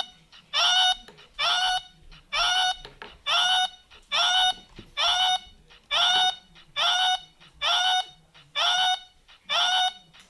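A nasal honking sound, repeated at an even pace about once a second, each honk the same length and pitch, like a looped electronic honk.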